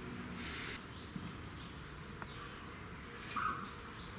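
Small birds chirping, short falling high notes every second or so, over a faint steady hiss, with a brief louder sound about three and a half seconds in.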